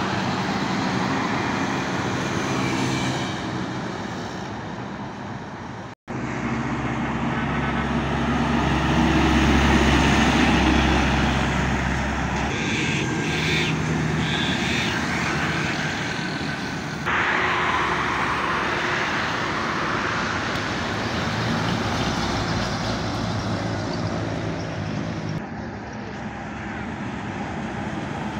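Heavy diesel trucks passing close by on a highway: engines droning with tyre and road noise. The loudest, deepest rumble comes a few seconds in. The sound breaks off and changes abruptly several times.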